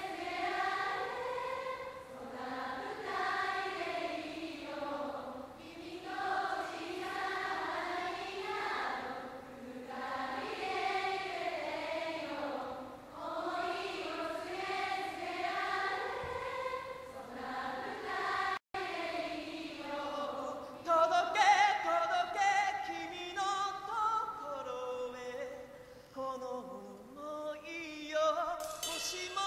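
A concert crowd singing along in unison, with little or no band behind it. After a brief dropout about two-thirds through, the singing turns clearer and brighter, and there is a bright crash near the end.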